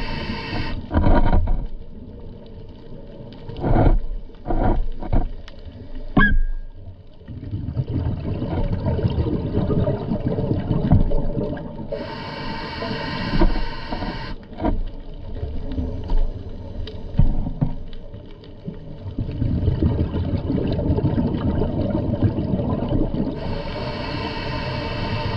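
Underwater recording of a scuba diver's breathing: exhaled bubbles rush out of the regulator in a burst of about two seconds, three times, roughly every twelve seconds. Between the bursts there is a low rumble of water noise and a few sharp clicks.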